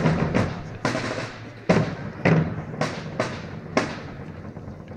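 Drums beating a rhythm to accompany flag waving, sharp strikes roughly two a second.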